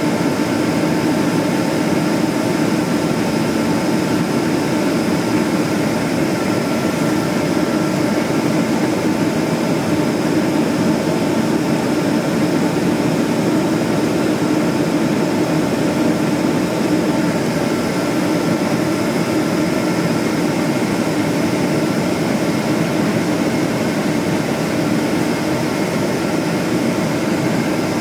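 Steady cabin noise inside a Boeing 777-200ER near the wing: the Rolls-Royce Trent jet engines and rushing airflow, with several steady whining tones over it.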